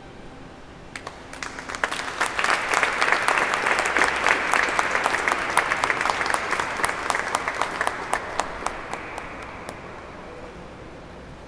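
Small audience applauding. The clapping starts about a second in, swells quickly, then thins out and dies away near the end.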